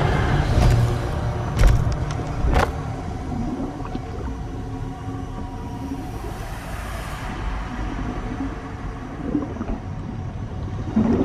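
Film sound effects: a low, steady rumble with a few sharp hits in the first three seconds, under quiet sustained music.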